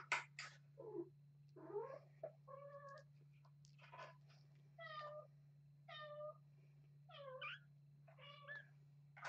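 A litter of young kittens mewing: short, thin, high-pitched mews, roughly one a second, some rising and falling in pitch.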